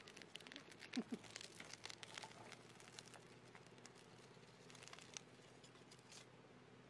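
Faint rustling and light clicking of dry wood shavings and thin kindling sticks as they are handled and laid onto a fire stand, with a slightly louder knock about a second in.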